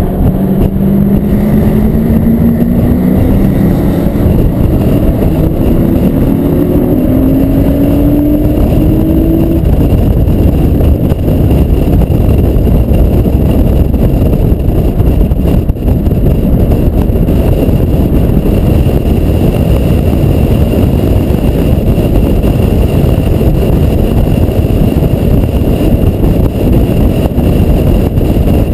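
Acura TL Type-S's V6 accelerating hard out of a corner, its pitch rising steadily for about the first ten seconds. After that the engine is buried under loud, steady wind rumble on the microphone as the car runs down the straight.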